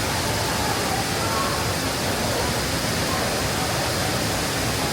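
Steady rush of a nearby waterfall, even and unbroken, with faint distant voices under it.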